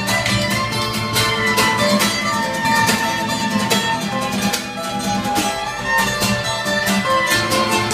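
Live instrumental jam: two acoustic guitars strummed in a steady rhythm under a violin playing a held, sliding melody line, with no singing.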